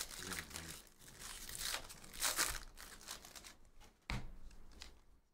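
Foil wrapper of a Panini Donruss basketball card pack being torn open and crinkled by hand, in several rough tearing bursts, the loudest about two seconds in. A short knock follows a little after four seconds in.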